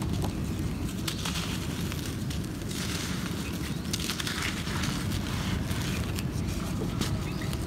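Dry, gritty soil lumps being crushed and crumbled between the hands, with a crackling crunch and loose grains trickling down in a few spells, over a steady low rumble.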